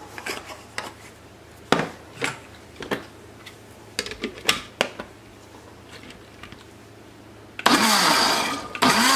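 A few light knocks and clicks from handling things on the counter, then a countertop blender pulsed twice near the end: the motor spins up loudly, stops, and spins up again. It is chopping canned diced tomatoes with garlic and seasoning into pizza sauce.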